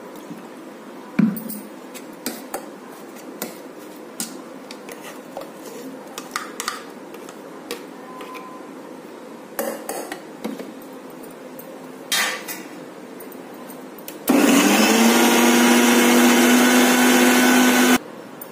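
A spoon clinks and knocks against a steel mixer-grinder jar and its lid. About 14 s in, the mixer grinder's motor starts, its pitch rising briefly as it spins up. It then runs loud and steady for about four seconds, grinding wet coconut chutney paste, and stops suddenly.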